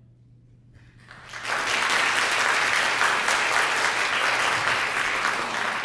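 Concert audience applauding: after about a second of hush the clapping swells in quickly and holds steady, beginning to thin out near the end.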